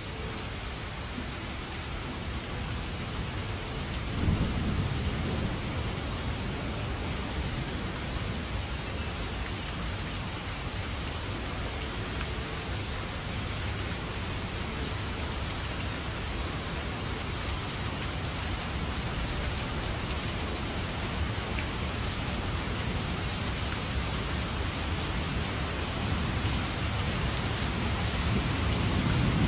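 Steady heavy rain falling, with low rolls of thunder rumbling about four seconds in and again near the end.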